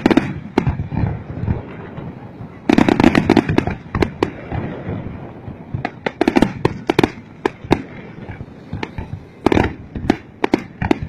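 Fireworks display going off: volleys of sharp bangs and crackles, the heaviest coming roughly every three seconds, with single cracks in between.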